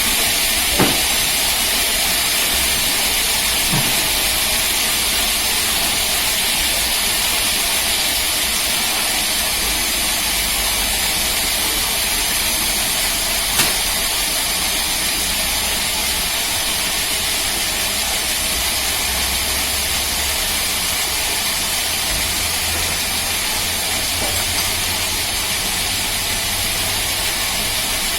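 Rail-mounted band sawmill running: a steady, loud hissing noise over a low hum, with a few faint ticks.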